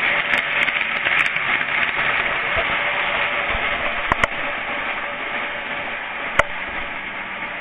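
Postwar Santa Fe toy train running on its track: a steady whirring rattle of motor and wheels that slowly fades. There are two sharp clicks, one about four seconds in and one a couple of seconds later.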